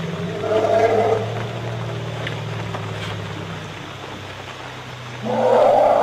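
Asian elephant herd calling while harassed by a tiger: a long, low rumble, with a short roar about half a second in and a louder, longer roar starting near the end.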